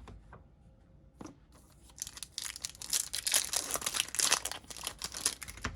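A foil trading-card pack being torn open and its wrapper crinkled, a dense crackling run that starts about two seconds in, after a couple of light clicks.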